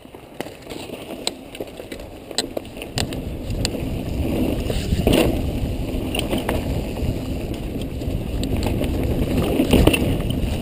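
Mountain bike riding down a dirt singletrack: a rough rush of wind on the microphone and tyres on the trail, with scattered clicks and knocks from the bike. It gets louder from about three seconds in as speed builds.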